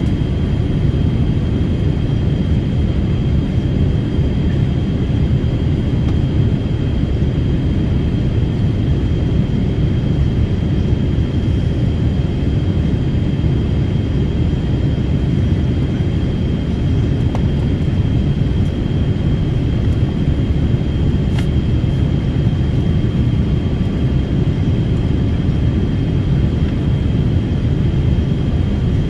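Airliner engine and airflow noise heard from inside the passenger cabin: a steady, unbroken low rumble with a thin steady high whine over it.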